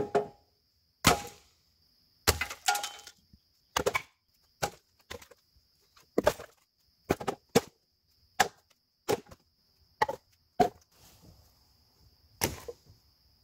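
Short cut log pieces tossed onto a pile one after another: about fifteen wooden clunks and knocks at irregular intervals, some doubled as pieces hit each other.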